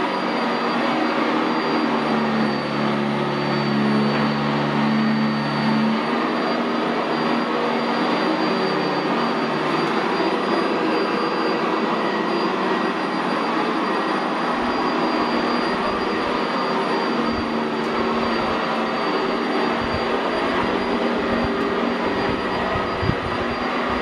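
Sanitaire SC679J commercial upright vacuum cleaner, fitted with a Vibra-Groomer II brush roll, running steadily as it is pushed over carpet: an even rush of air with a thin high motor whine. Irregular low bumps come in the second half.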